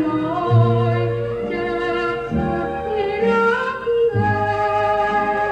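Old Thai song playing from a vinyl record on a turntable: a melody line with vibrato over changing bass notes.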